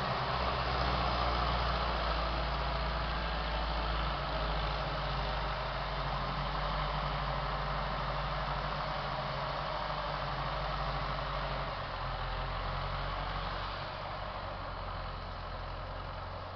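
Diesel engine of an LKT 81 T turbo forestry skidder running steadily at low revs, heard from a distance. It gets a little quieter in the last few seconds.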